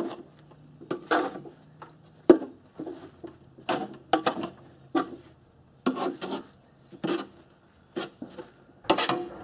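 Caked, matted grass clippings being scraped off the underside of a lawn mower's steel deck with a hand tool, in a dozen or more short, irregular scraping strokes. The sharpest and loudest one comes about two seconds in.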